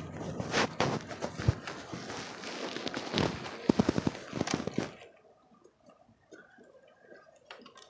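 Rustling, scraping and knocking of a phone being carried at a run, with a quick run of sharp clicks and taps; it goes much quieter about five seconds in.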